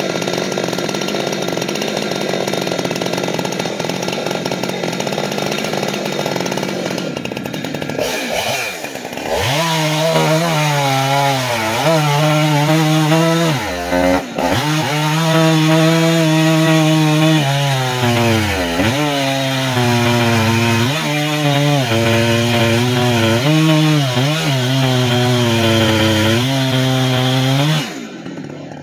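Jonsered 2186 two-stroke chainsaw with a 32-inch bar cutting through a white oak log at full throttle. For the first several seconds it sounds noisy with no clear pitch; after that a strong steady engine tone sags in pitch and recovers over and over as the chain is loaded in the cut. The saw drops off just before the end.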